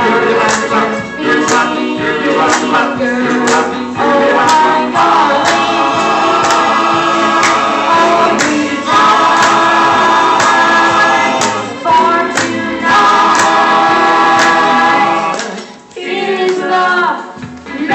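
A boy singing a 1950s classic into a handheld microphone over musical accompaniment with a steady beat, holding long notes. The music drops away briefly near the end.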